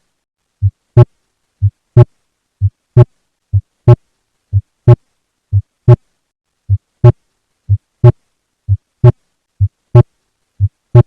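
Heart sounds at about 60 beats a minute. Each beat is a soft, low first sound followed about a third of a second later by a louder, sharper second sound, with silence between the beats. The faint first sound (S1) is the diminished S1 of calcified, stiff mitral valve cusps, as in advanced rheumatic mitral stenosis.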